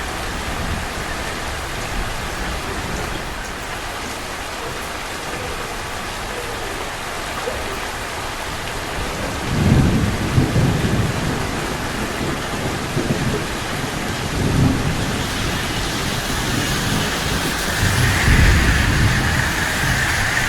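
Steady rain hissing on the street, with a low rumble of thunder that rolls in about halfway through and swells again near the end.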